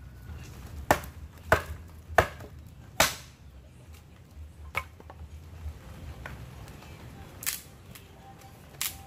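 Dry sticks snapping as firewood is broken up: sharp cracks, four in quick succession in the first three seconds, then a few more spaced out.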